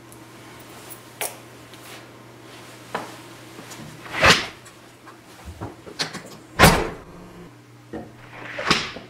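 A door being opened and shut: a few light clicks, then two loud knocks a couple of seconds apart, over a low steady hum.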